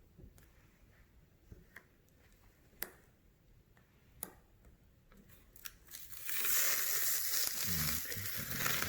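A few light plastic clicks and taps as the case is handled, then, about six seconds in, a loud, sustained crinkling rip of the protective plastic film being peeled off the tablet case.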